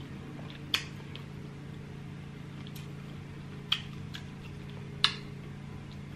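Close-miked eating of shelled seafood with sauce: about three sharp, short wet clicks of the mouth and food, with a few fainter ones, over a steady low background hum.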